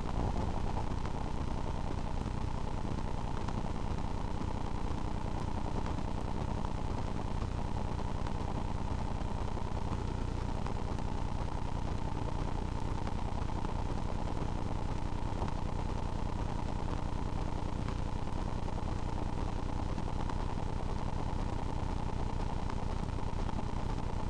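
A steady, even mechanical hum with faint constant tones, unchanging throughout.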